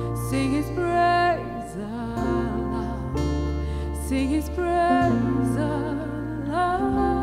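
A live worship song: a woman sings the lead vocal into a microphone, with vibrato on the held notes, backed by a band holding sustained low notes and chords.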